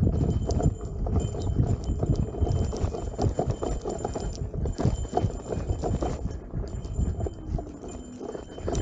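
Begode Master electric unicycle riding down a loose, rutted dirt trail: a dense, irregular run of knocks and rattles as the wheel and suspension hit bumps, over a low rumble, with a faint steady high whine above.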